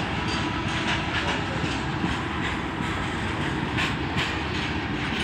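Empty goods train's open hopper wagons rolling past close by: a steady rumble of steel wheels on rail, with a clickety-clack as the wheels pass over the rail joints.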